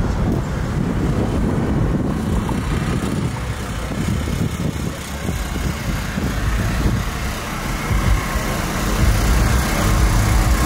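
Vehicle engine idling, a steady low rumble that grows a little louder near the end.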